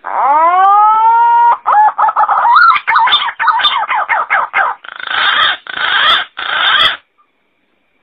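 Green pigeon (punay) calling: a long whistled note that rises and holds for about a second and a half, then a run of quick warbling notes, ending in three harsh, rasping notes before it stops.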